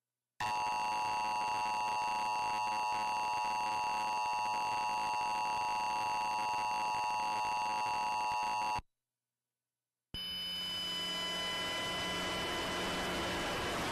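Emergency Alert System attention signal: a steady two-tone alarm that holds for about eight seconds and cuts off abruptly, announcing an alert broadcast, here the monthly EAS test.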